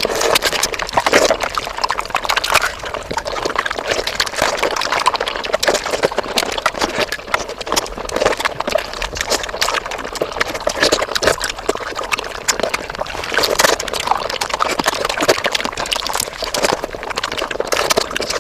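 Mukbang eating sounds sped up five times: a dense, unbroken stream of rapid wet chewing, smacking and slurping clicks.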